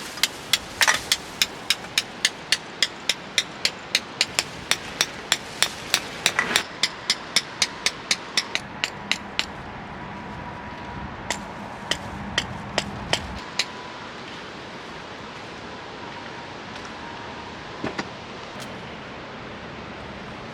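Hammer driving a metal tent peg into hard gravel ground, with sharp ringing strikes about three a second for roughly nine seconds, then a few slower taps.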